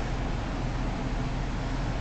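Steady background hiss with a low hum; no cat sound and no distinct event.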